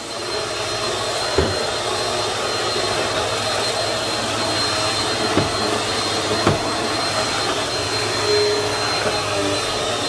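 Bissell PowerForce Helix upright vacuum cleaner running steadily as it is pushed over carpet, with a thin, steady high whine over its motor noise and three brief knocks along the way.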